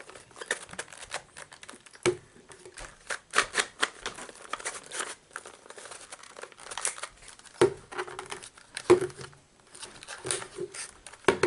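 Plastic pieces of a jumbo 9 cm 3x3 puzzle cube clicking and rattling as its layers are turned and worked, with three louder hollow knocks about 7.5, 9 and 11 seconds in.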